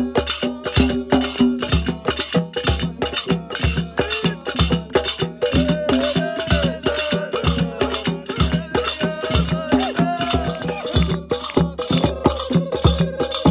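Hand drums beaten by several players in a fast, even rhythm, several strikes a second, with a voice singing over the drumming.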